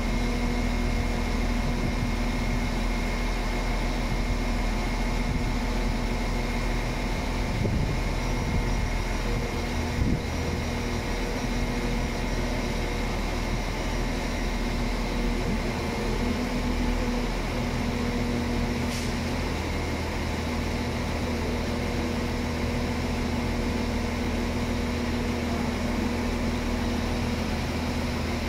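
GBRF Class 66 diesel locomotive's EMD 710 two-stroke V12 engine running at low power as it approaches slowly: a steady, even hum with a low drone. A single sharp click about ten seconds in.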